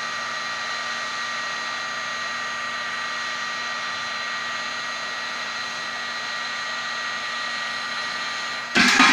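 Electric heat gun running steadily, blowing hot air onto a circuit board to melt the solder and free the components, a steady rush of air with a constant whine from its fan. Near the end there is a sudden, brief loud clatter.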